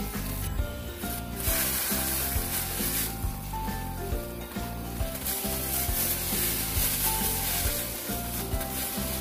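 Soup broth at a rolling boil in a stainless steel pot, a steady bubbling hiss, over light background music with a steady beat.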